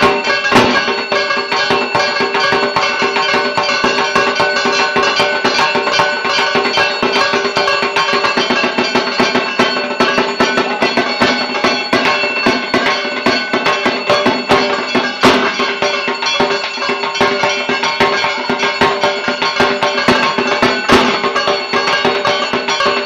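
Dhak, the Bengali barrel drum, beaten fast with sticks in a dense, unbroken rhythm.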